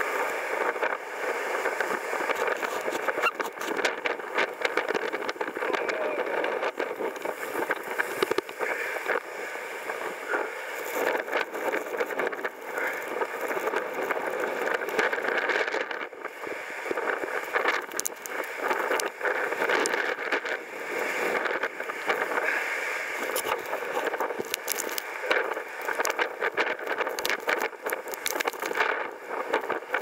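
Blizzard wind rushing steadily, with many sharp crackles and pops as gusts buffet the microphone.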